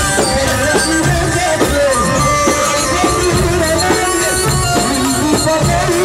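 Loud Egyptian sha'bi band music: a melody line over steady hand-drum and frame-drum beats.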